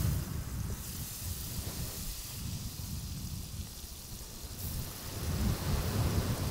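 Oil sizzling steadily in a hot cast-iron skillet with garlic, pimento and rosemary frying in it, over a low, uneven rumble.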